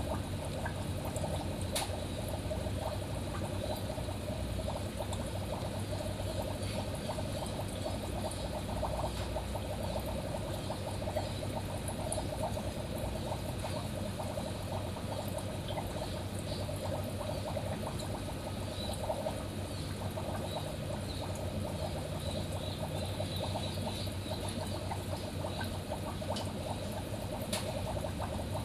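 Aquarium water trickling and splashing steadily, the run of a tank filter's outflow, over a low steady hum.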